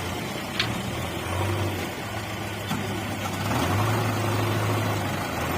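An engine idling: a low, steady hum that fades and returns in stretches, with one sharp click about half a second in.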